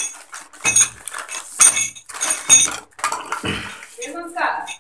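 Brass plumbing fittings clinking against each other as they are handled, several sharp ringing metallic clinks about a second apart. A duller knock comes about three and a half seconds in, and a brief voice near the end.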